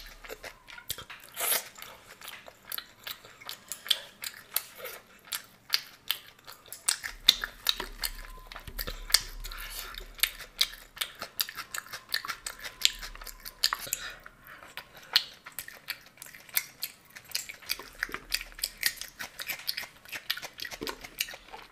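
Close-up chewing and crunching of fried snacks eaten by hand, with many sharp, irregular crunches and wet mouth sounds.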